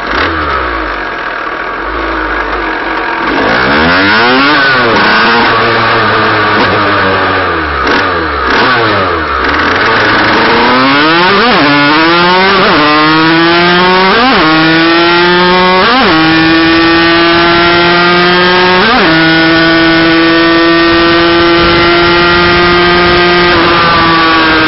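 HM Derapage motorcycle engine running during carburetion tests: low running at first, then revved up and down a few times. From about halfway through it accelerates through the gears, the pitch climbing and dropping back at each of five upshifts, then holds a steady high note that falls away near the end.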